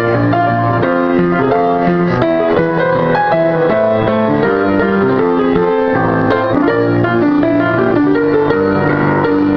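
Upright piano playing ragtime: a steady bass line under chords and a busy melody, played without a break.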